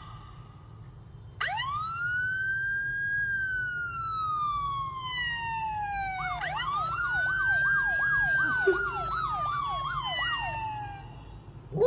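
Electronic police-style siren played from a phone. About a second and a half in, a wail sweeps up quickly and then slowly falls. A second wail starts about six and a half seconds in, with a fast up-and-down yelp over it, and fades out near the end.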